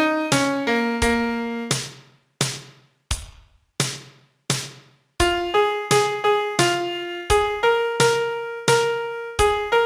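Piano playing a simple single-note melody, each note struck and left to die away. A quick phrase and a held note open, then four lone notes with brief silences between them, and from about halfway a steady run of notes, roughly two or three a second.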